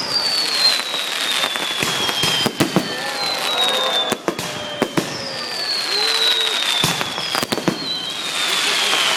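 Fireworks display: sharp bangs and crackles of bursting shells, with several long whistles that fall in pitch, each lasting about two seconds.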